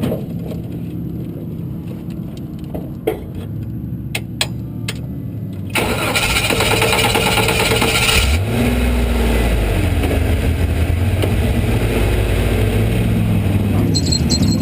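A few sharp clicks, then about six seconds in the race car's engine is cranked by the starter and catches after a couple of seconds. It then keeps running at idle, its pitch rising and falling slightly.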